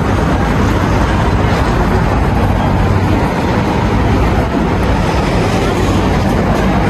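Steady rumble of street traffic, with no distinct events standing out.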